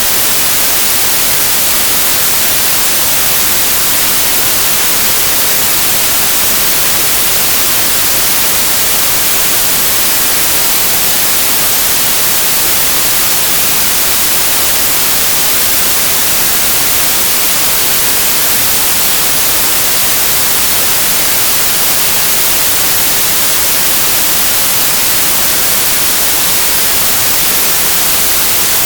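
Steady, even hiss of white noise that stays loud and unchanging throughout, brightest in the treble, with no other sound.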